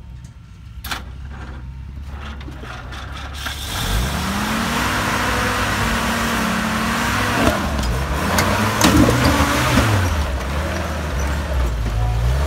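Flat-fender Willys jeep's four-cylinder engine idling low, then revving up about four seconds in and pulling under load as the jeep crawls up over a rock ledge. The engine speed falls and rises again near the middle, with a few sharp knocks.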